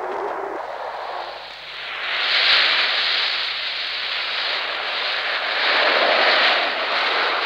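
Waves breaking and washing over a shore: a loud rushing noise that swells about two seconds in and again near the end.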